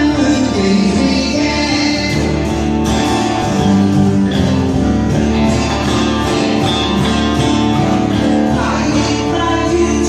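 A man singing while strumming an acoustic guitar, both amplified through a microphone and PA in a hall.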